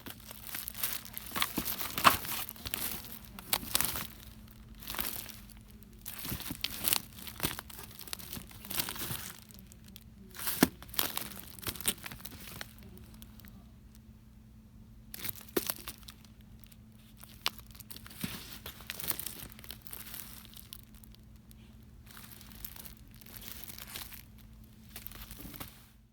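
Packaging crinkled and handled close to the microphone in irregular bursts, with a few sharper crackles among them.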